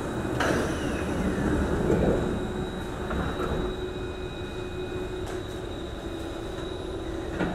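Singapore MRT East-West Line train's doors shutting with a knock about half a second in, then the train pulling away from the station: a steady wheel-and-rail rumble with a steady electric motor tone above it, and another knock near the end.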